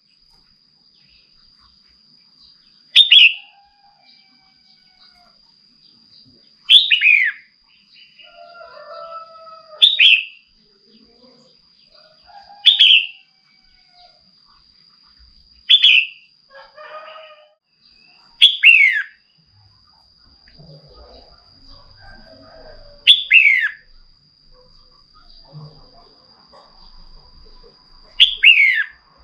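Female red-whiskered bulbul giving a loud, short call that slides downward in pitch, repeated eight times at intervals of three to five seconds. It is the call by which the hen stirs up male bulbuls.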